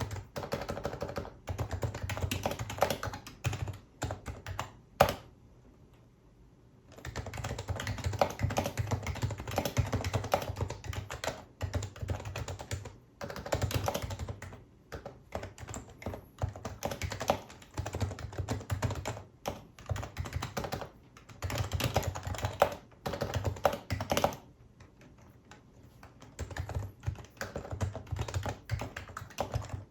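Typing on a Happy Hacking Keyboard Professional HYBRID Type-S, with its electrostatic capacitive (Topre-type), noise-dampened Type-S switches. Fast runs of keystrokes are broken by two short pauses: one with a single sharper key strike just before it, and a second, longer one about four-fifths of the way through.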